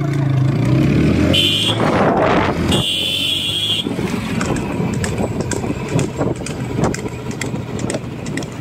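Motorcycle engine running with wind noise while it keeps pace with a bull-drawn racing cart. Two high beeps sound in the first few seconds. From about four seconds in, a fast, dense clatter of the cart and hooves on the road takes over.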